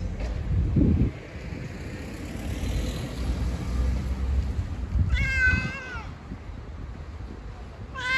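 A cat meows once, a short call about five seconds in, and a second meow begins right at the end. Low rumbling noise runs underneath, with a dull thump about a second in.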